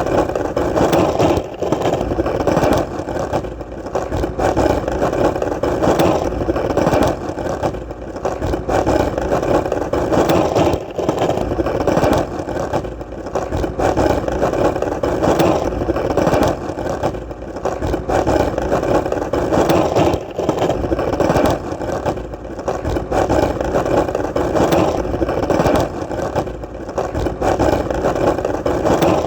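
Skateboard wheels rolling on hard ground: a steady rumble that swells and eases every few seconds.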